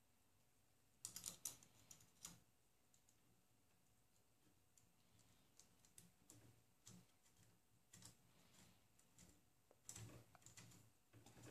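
Faint small clicks and taps of hands handling the 3D printer's X carriage parts on its smooth rods, with a cluster of clicks about a second in and again near the end.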